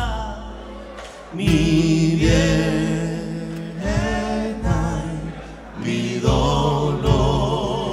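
Live Argentine folk band playing a song: men singing with vibrato over acoustic guitars, a drum kit and the low beats of a bombo legüero.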